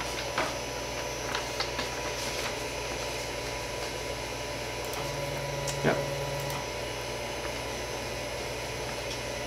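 Steady fan and electrical hum of a Creality CR-10S 3D printer, with a few light clicks. A brief low motor tone, about a second and a half long, comes in about five seconds in.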